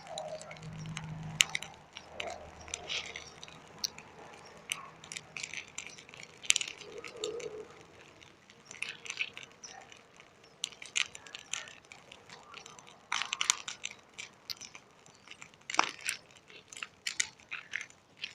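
Burning hay bonfire crackling, with many irregular sharp pops and snaps.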